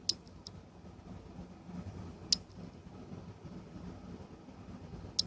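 A few sharp, light clicks, two to three seconds apart, as the two pieces of a disassembled manual nose and ear hair trimmer are handled, over a low steady hum.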